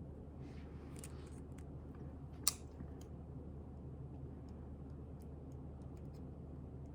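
Steady low room hum with soft handling noises: a brief rustle near the start and one sharp click about two and a half seconds in, followed by a few faint ticks.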